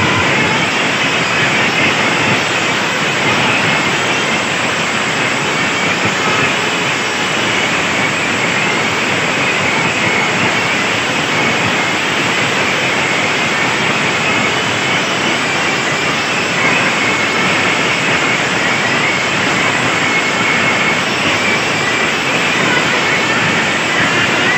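Large DJ sound-system speaker stacks playing at full volume at close range, overloading the recording into a steady, distorted roar with no clear beat.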